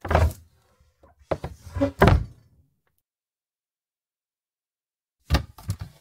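Wooden kitchen cupboard doors being shut and handled: a knock right at the start, then a cluster of knocks and rattles about one to two and a half seconds in, the loudest near two seconds. After a pause of a few seconds, more knocks come near the end.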